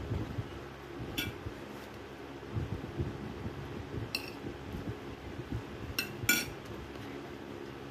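Metal spoon and fork clinking against a noodle cup and a plate of rice while eating. There are four sharp clinks, the loudest near the end, with low chewing and handling noise in between.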